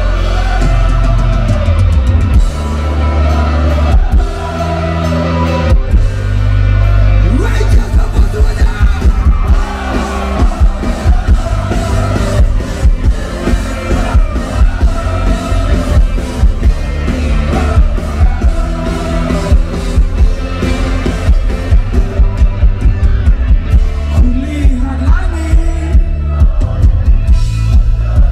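Live rock band playing loud through the PA: electric guitars, bass, keyboards and drums, with heavy bass. A steady drum beat comes in about seven seconds in.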